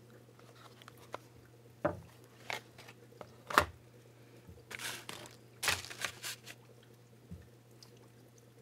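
Scattered rustles, crinkles and light knocks of packaging and a paper card being handled, with small items moved on a tabletop; the sharpest click comes about three and a half seconds in and a cluster follows around the sixth second. A faint steady low hum lies underneath.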